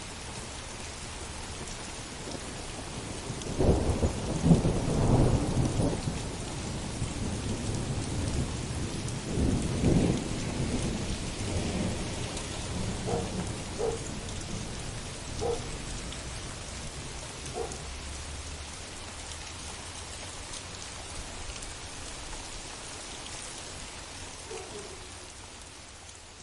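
Heavy rain falling steadily, with a long rolling rumble of thunder from about four to eleven seconds in. The rain eases off toward the end.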